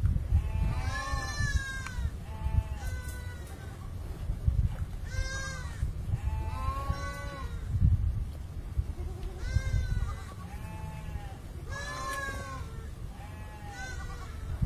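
Animals bleating over and over, a short wavering call about every second with several voices at different pitches, over a steady low rumble.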